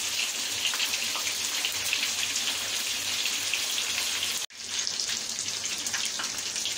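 Chicken tikka pieces sizzling and crackling in hot oil on a tawa, a steady hiss with fine popping. About two-thirds of the way through the sound cuts out for an instant, then the same sizzle carries on.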